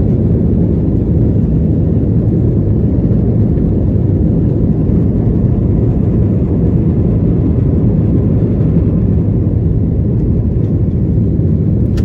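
Jet airliner cabin noise during the climb after takeoff: steady, loud, deep engine and rushing-air noise that holds even throughout.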